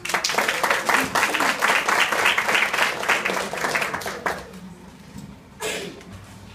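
Audience applauding for about four seconds, then dying away, followed by a single brief thump near the end.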